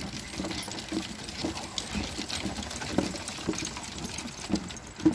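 Footsteps thudding about twice a second on the planks of a wooden boardwalk, at a walking pace, with a light metallic jingling over them.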